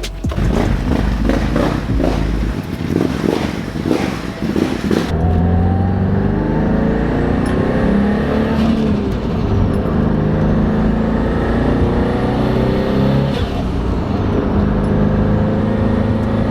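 Turbocharged Subaru STI flat-four engine under way: it opens with a few seconds of uneven clattering, then the engine pulls through the gears three times, its pitch climbing and dropping at each shift. A high rising turbo whistle rides over it, and the turbo is so loud. The engine runs smoothly here, with no misfire heard, on fresh spark plugs.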